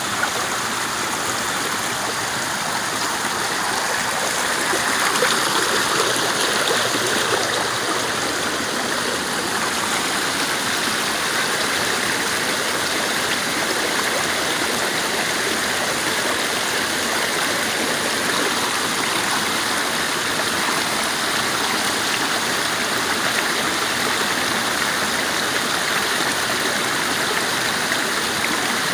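Small rocky forest stream running and splashing over a little cascade, a steady rush of water that swells slightly about five seconds in.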